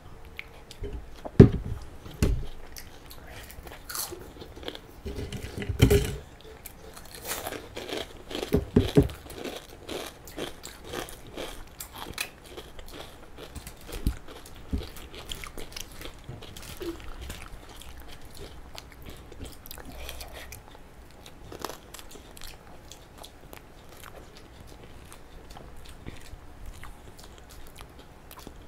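Two people eating: chewing and smacking mouthfuls of rice and rajma eaten by hand, with many small wet clicks of the mouth. A few louder thumps come about a second and a half in, at six seconds, and just before nine seconds.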